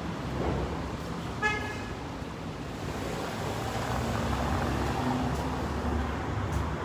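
Street traffic: a car engine running with a steady low rumble, and a short car horn toot about a second and a half in.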